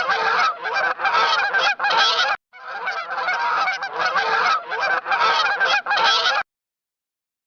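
A flock of geese honking in a dense, overlapping chorus, with a brief break about two and a half seconds in. The honking cuts off suddenly about a second before the end.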